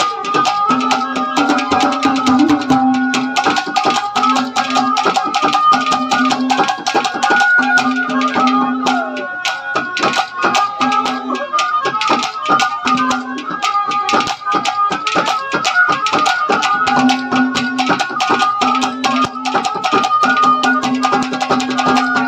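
Instrumental interlude of Haryanvi ragni folk music: a fast, dense hand-drum rhythm under a sustained melody line and a repeating low note.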